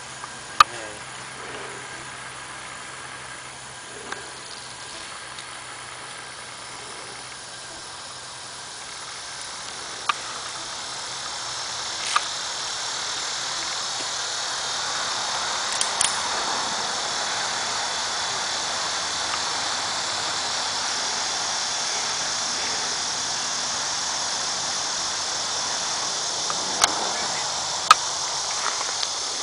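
Steady high-pitched insect chorus, growing louder from about ten seconds in, with a few sharp single clicks of a ratchet tie-down strap's ratchet being worked, the loudest near the start and near the end.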